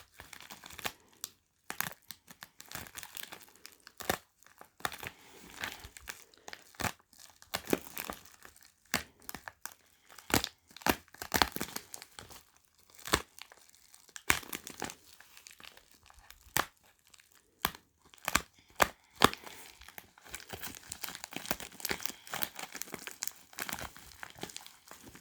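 A mailed package being opened by hand: tearing and crinkling of its packaging, with many irregular sharp snaps and a denser stretch of crinkling near the end.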